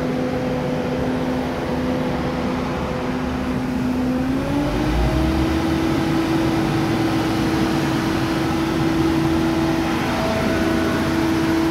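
Diesel multiple-unit train standing at the platform, its engine running with a steady hum that glides up in pitch about four and a half seconds in and holds at the higher note, as the engine is throttled up.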